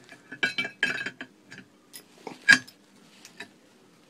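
Metal mounting plate clinking against the steel bolts and washers on the pier as its slots are worked onto them: a quick run of clinks in the first second, one sharp louder clink about two and a half seconds in, then a few lighter ticks.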